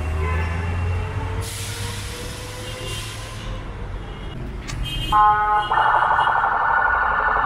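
City street traffic: an engine rumbling past, and a hiss from about one and a half to three and a half seconds in, like a heavy vehicle's air brakes. Near the end, a vehicle horn gives a short beep and then a long, rapidly pulsing blast, the loudest sound.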